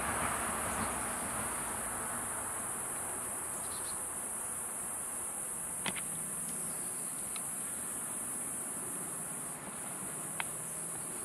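Steady, high-pitched chorus of outdoor insects with a brief dip near the end, and a few sharp clicks about halfway through and near the end.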